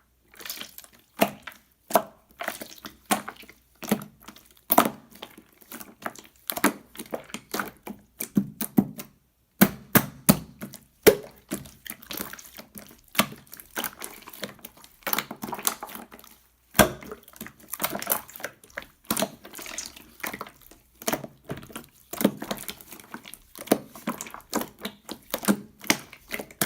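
Marbled slime being squished and pressed by hand, giving quick irregular runs of sharp wet clicks and pops.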